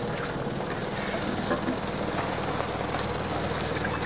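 An engine running steadily at low revs, with a continuous crackling hiss over it.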